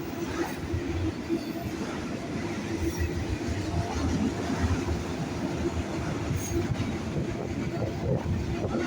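Autorack freight cars rolling past on the track: a steady rumble of steel wheels on rail, with irregular knocks and clicks.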